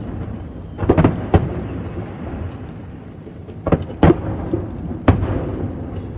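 Aerial fireworks shells bursting over and over: a quick cluster of booms about a second in, two more near the middle and another near the end, each trailing off in a low rumbling reverberation.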